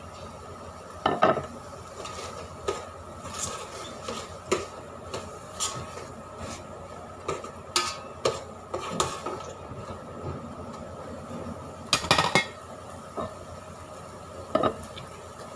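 Metal cooking pots, a pot lid and utensils knocking and clinking in irregular short clatters, the loudest about a second in and again a few seconds before the end.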